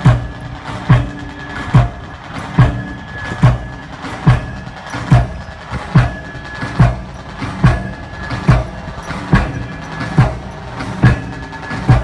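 Pile hammer driving a concrete test piling, striking in a steady rhythm a little faster than once a second, over the steady hum of the machinery.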